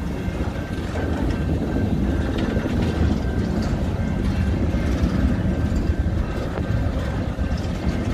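Freight train tank cars rolling past at a grade crossing: a steady low rumble of steel wheels on the rails.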